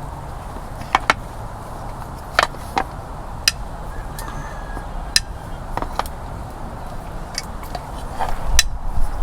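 Scattered sharp clicks and knocks of hand-held parts and tools being handled, irregular and a second or so apart, over a steady low rumble. The knocks crowd together and grow louder near the end.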